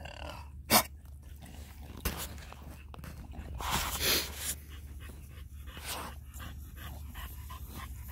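English bulldog panting in short, fairly even breaths. A short sharp noise about a second in is the loudest moment.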